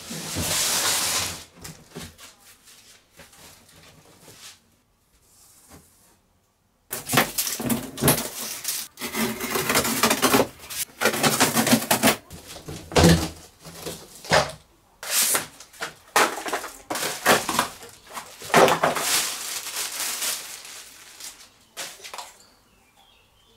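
A large cardboard shipping box is dragged across a concrete floor, then opened and unpacked: a long run of irregular cardboard scraping, crinkling, tearing and light knocks as flaps and packing pieces are handled.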